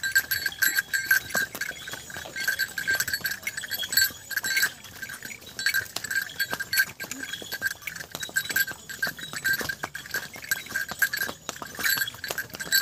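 A small bell on a walking horse's harness jingling over and over with the animal's stride, among scattered clicks of hooves on a stony trail.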